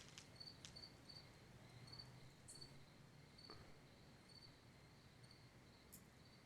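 Faint cricket chirping: short, even chirps at a steady rate of about three a second, with a few soft clicks.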